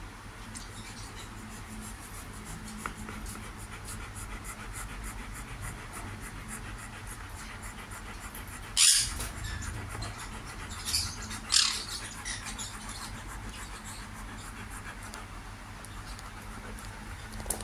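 Siberian husky panting steadily while being petted. A few short, loud rushes of breath or noise break in about nine seconds in and twice more around eleven to twelve seconds.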